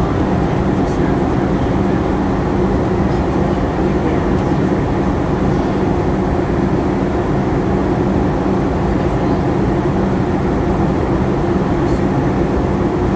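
Steady cabin noise of a Boeing 737-800 in flight: an even rush of airflow with a steady low hum from its CFM56-7B turbofan engines.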